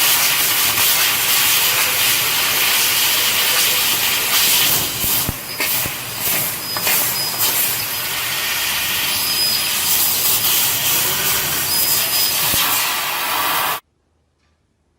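CO2 laser cutting machine at work, giving a loud steady hiss that wavers for a couple of seconds midway and cuts off suddenly near the end.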